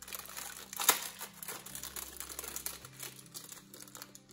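Thin plastic packaging crinkling and crackling as it is handled in the hands, with one sharper crackle about a second in.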